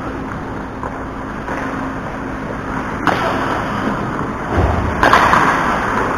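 Ice hockey skates carving and scraping on rink ice during play, with two sharper scrapes about three and five seconds in and a low thump just before the second.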